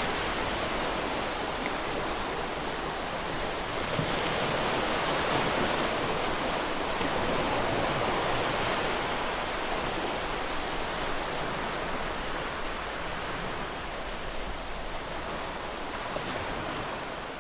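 Sea surf washing onto a beach, a steady rush of breaking waves that slowly grows quieter toward the end.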